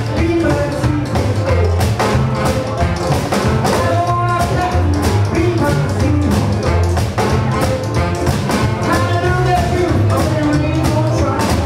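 Live rock and roll band playing with a steady beat: a male voice singing into a microphone over piano, electric guitar, upright bass and drums.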